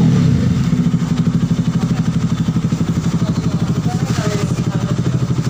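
Kawasaki RS200's single-cylinder four-stroke engine idling steadily with an even pulsing beat, settling down from a brief higher rev in the first half second. It has just been started after a clutch lining change, run so the fresh engine oil circulates.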